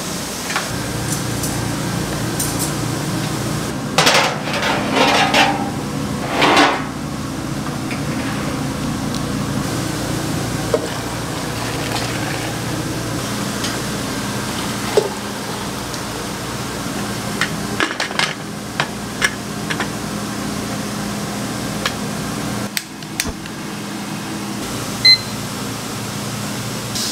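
Kitchen work: dishes and utensils clattering and knocking over a steady machine hum, with a cluster of clatter about four to seven seconds in and scattered clicks later on.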